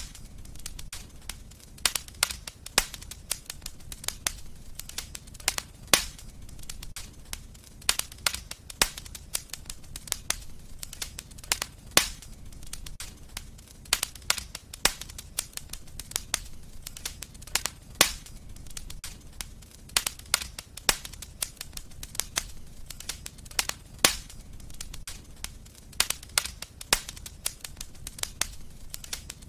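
Fireplace fire crackling: a dense run of irregular sharp pops and snaps, a few much louder than the rest, over a low steady rumble of the flames.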